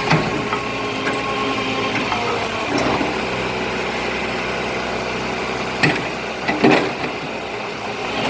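Kobelco SK04 mini excavator's diesel engine running steadily while its freshly reconditioned hydraulics are worked. There are sharp metallic knocks just after the start and again about six to seven seconds in.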